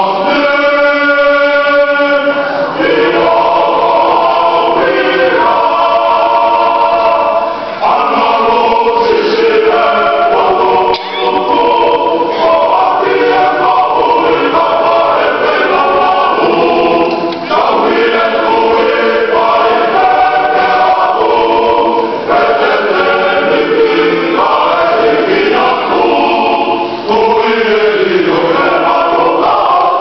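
A church choir singing a hymn in Tongan, many voices together, steady and full throughout.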